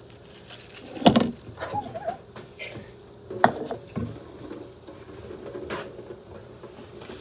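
Thin plastic of a jelly-fruit cup and its peel-off film crinkling and clicking as it is handled and squeezed, with a few sharp crackles, the loudest about a second in.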